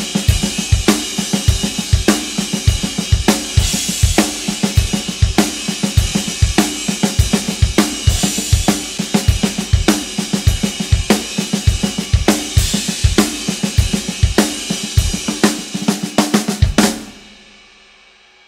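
Gretsch Brooklyn drum kit played live in a steady groove with kick drum, snare and hi-hats under crash and ride cymbals, a natural untriggered drum sound. About 17 seconds in the playing stops and the cymbals ring out and fade.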